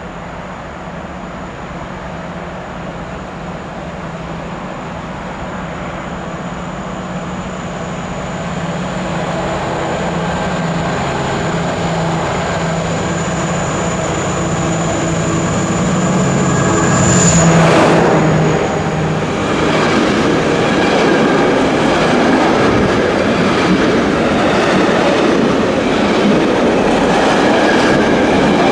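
A diesel locomotive hauling a container train approaches, its engine running and growing steadily louder, with a steady high whine alongside. It is loudest as the locomotive passes about 17 seconds in. The container wagons then roll past with a continuous wheel rumble and clickety-clack over the rail joints.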